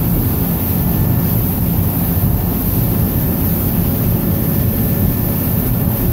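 1969 Stamas Americana cabin cruiser under way at speed: a steady engine drone mixed with wind buffeting the microphone and the rush of the wake.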